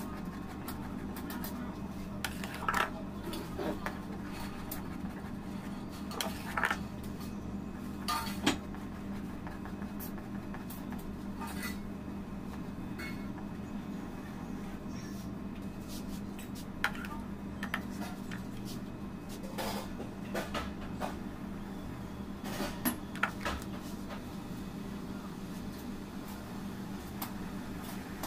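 Metal spatula and cake scraper clinking and scraping against the cake board, turntable and cream bowl while whipped cream is spread on a cake, in scattered short taps every few seconds over a steady low hum.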